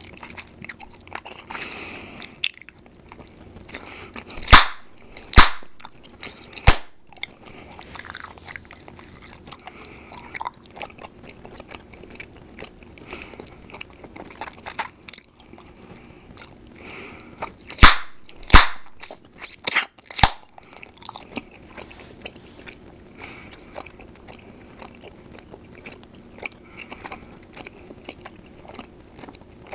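Bubble gum chewed close to the microphone with small wet smacks, broken by loud, sharp gum pops: three a few seconds in, and a quick run of about five about two-thirds of the way through.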